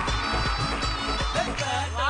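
Upbeat background music with a steady beat; the beat drops out near the end.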